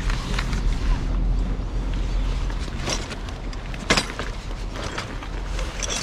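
Freshly lit kindling crackling and snapping in a double-walled wood-burning camp stove, with a sharper snap about four seconds in, over a steady low rumble of wind on the microphone.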